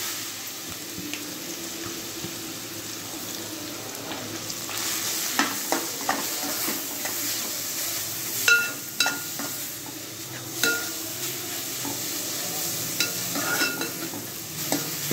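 Grated papaya frying in ghee, sizzling steadily in an aluminium pan while a steel spoon stirs it. The spoon scrapes and strikes the pan with a few ringing clinks in the second half.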